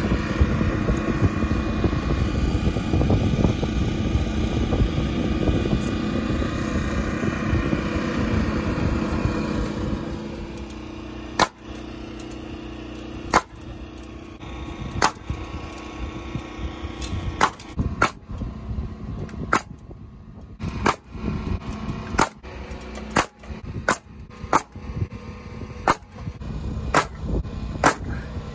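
A nail gun firing over a dozen sharp shots, irregularly spaced at roughly one a second, nailing metal joist hangers and purlins to wooden roof trusses. Before the nailing starts, a steady mechanical running noise fills about the first ten seconds and then drops away.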